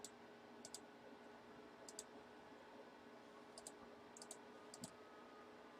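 Near silence with faint, scattered clicks at a computer, several in quick pairs, as from operating camera or streaming controls.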